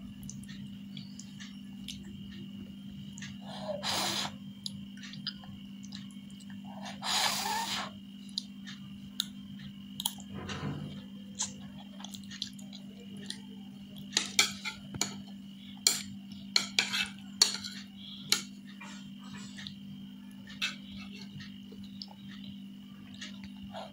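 A metal fork clinking and scraping against a plate as noodles are scooped up and eaten, in short sharp clicks that come thickest about two-thirds of the way through, with two longer scraping noises in the first third. A steady low hum runs underneath.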